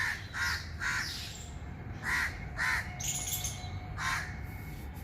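Crows cawing: three quick harsh caws at the start, two more about two seconds in, and a single caw near the end.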